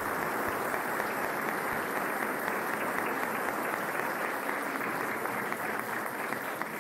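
An audience applauding steadily: many hands clapping.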